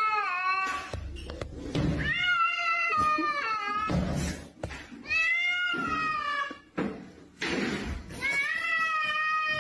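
A cat yowling: four long, drawn-out meows about three seconds apart, each bending down in pitch at the end, with dull thumps between the calls.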